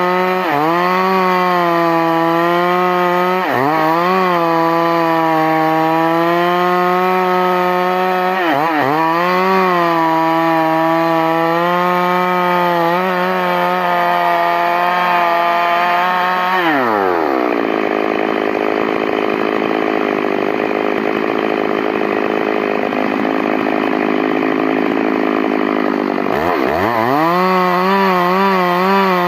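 Stihl MS 382 two-stroke chainsaw running at high revs, with short dips in engine speed. About seventeen seconds in, the pitch drops sharply and the saw runs lower and rougher for about nine seconds, as when it is bogged down under load in a cut through wood. It then revs back up near the end.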